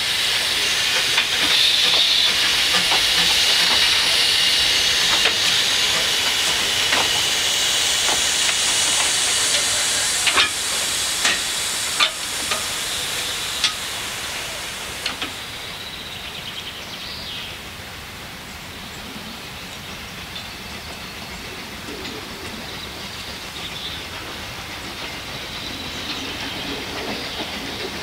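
Narrow-gauge saddle-tank steam locomotive passing, with a steady loud hiss of steam and a run of sharp clicks from its wheels over the rail joints. The hiss and clicks die away about halfway through, leaving a quieter background.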